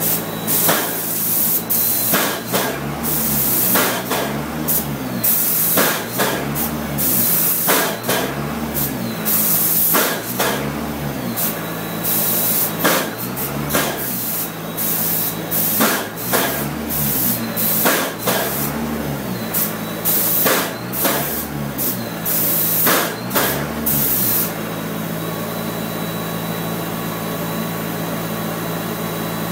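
Paint spray gun hissing in a string of short passes, about one to two bursts a second, as a coating is sprayed onto a flat test panel. Under it runs the steady hum of the spray booth's ventilation. The spraying stops about 24 seconds in, leaving only the hum.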